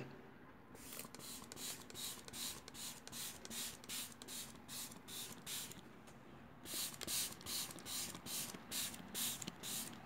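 Hand trigger spray bottle squirted over and over onto houseplant leaves: short hisses about two or three a second, with a brief pause a little past halfway.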